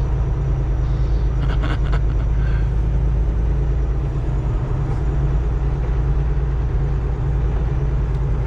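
Diesel engine of a 2023 Kenworth T680 semi truck running at low speed, heard as a steady low rumble inside the cab while the truck is maneuvered into a parking spot. A few short clicks come about a second and a half in.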